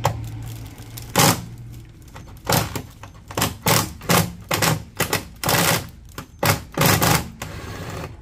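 A string of irregular hard clacks and knocks, about a dozen in all, some short and some drawn out. A low steady hum stops about two seconds in.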